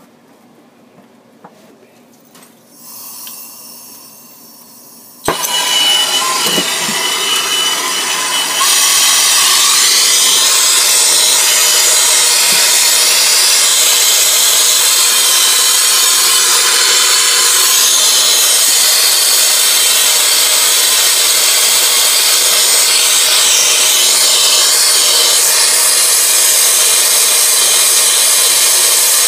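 Gas brazing torch heating a copper line joint for silver soldering. Gas hisses softly, then the torch lights with a sharp click about five seconds in. The flame then burns with a loud, steady rushing hiss that grows louder a few seconds later and holds.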